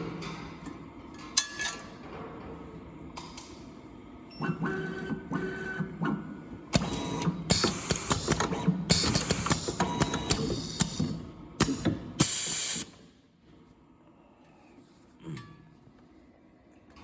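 Semi-automatic soldering machine working through its cycle: mechanical clicks and clatter, ending about twelve seconds in with a short, loud hiss.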